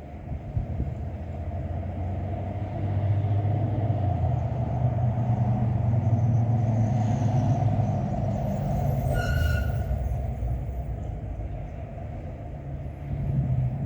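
Wind gusting over the microphone, a low rumble that builds over a few seconds, holds, then eases off. A brief high chirp comes about nine seconds in.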